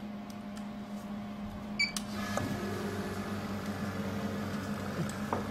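Steady hum of a pneumatic shockwave therapy machine running, with a short electronic beep just under two seconds in, after which the running sound gets slightly louder.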